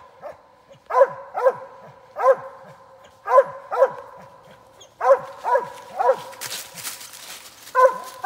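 Squirrel dog barking treed at the base of a tree, short sharp barks in quick clusters of two or three, telling that a gray squirrel is up the tree.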